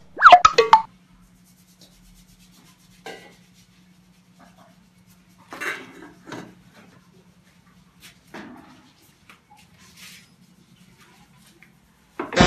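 A short, loud squeak that falls in pitch just after the start, then scattered soft scrapes and knocks of a plastic rice paddle and metal pot lid as rice is served from the pot. A faint steady low hum runs underneath.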